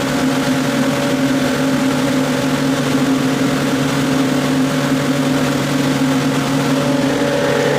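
Atlas Copco GA 165 oil-injected rotary screw air compressor running with a steady, even hum.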